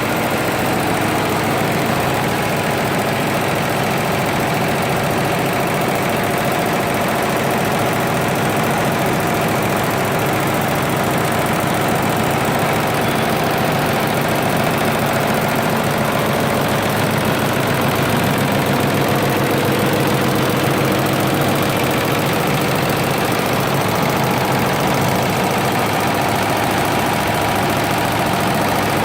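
Six-head embroidery machine running, its needles stitching in a fast, steady, even rhythm.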